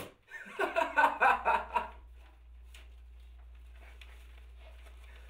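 A man laughing in short, quick bursts for about two seconds, then softer chuckling over a steady low hum that cuts off suddenly at the end.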